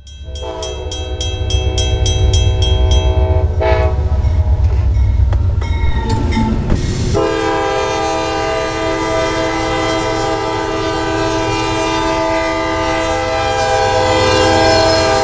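CSX diesel freight locomotives passing close at a grade crossing: a heavy low engine rumble with a rapid, even dinging about three times a second, like a crossing bell, for the first three seconds. A short horn note comes near four seconds, then from about seven seconds the locomotive horn holds one long multi-note chord.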